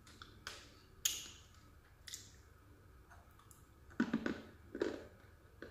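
Close-up crunching of dried edible clay (mabele) being chewed: a few single sharp crunches in the first two seconds, then a quick cluster of crunches about four seconds in and a couple more after.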